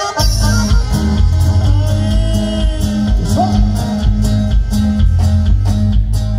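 Norteño band playing live: a bass line and drums keep a steady, bouncing beat under the melody instruments.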